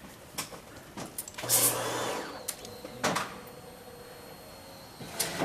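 Triumph Speed Triple motorcycle being readied to start: a few clicks and a short electric whir about a second and a half in, then a faint steady whine, and a brief burst near the end as the starter begins to turn the engine over.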